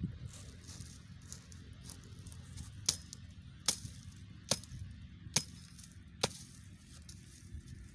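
Small hatchet chopping at the base of a dry woody shrub: five sharp chops a little under a second apart, starting about three seconds in.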